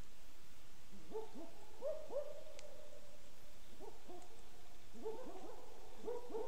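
Short hooting calls of a night animal, each swooping up in pitch and then holding briefly, repeated in three bursts, the last and busiest near the end.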